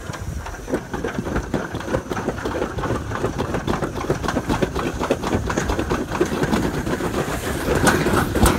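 Alpine-slide toboggan sled running fast down its trough track: a steady rattling rumble of the sled's wheels on the track.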